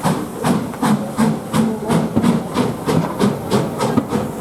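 Steam exhaust beat of Taff Vale Railway 0-6-2T tank locomotive No. 85 under way: an even rhythm of chuffs, about three a second.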